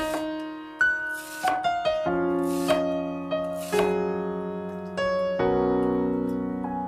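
Background piano music, its chords changing about every second, with a few short hissing accents in the first half.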